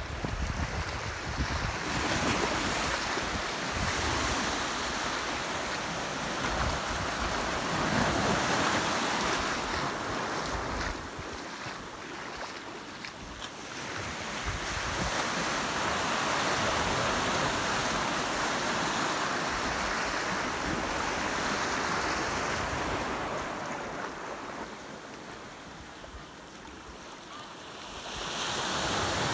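Small ocean waves breaking and washing in the shallows, the surf swelling and easing, with two quieter lulls. Gusts of wind rumble on the microphone at times.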